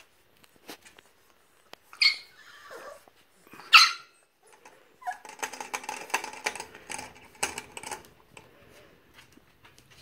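Bulldog puppy making two short, high yips, about two seconds in and near four seconds, then a rasping, grumbling play-growl for about three seconds while it mouths a hand.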